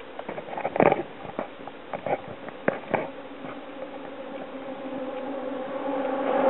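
Knocks and rattles from a bicycle ridden over a bridge walkway, several within the first three seconds. Then a steady two-tone hum of a motor vehicle on the bridge roadway grows louder toward the end as it approaches.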